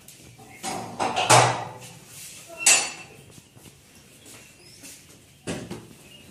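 Metal front gate being unlatched and opened: a few short scraping, clanking sounds, loudest about a second and a half in and again near three seconds, with another knock near the end.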